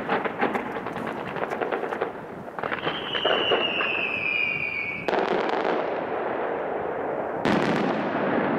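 Fireworks crackling: a quick run of sharp pops for about two seconds, then a falling whistle that cuts off suddenly. After that comes a steady rush of noise that jumps louder near the end.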